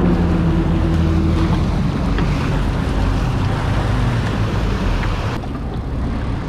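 Four Yamaha 300 four-stroke outboards running in gear at the stern, a steady low drone with the wash of the churning wake over it. The water noise drops away about five seconds in.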